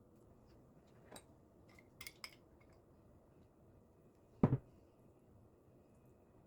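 Kitchenware being handled: a few light clinks about one and two seconds in, then a louder dull double knock about four and a half seconds in.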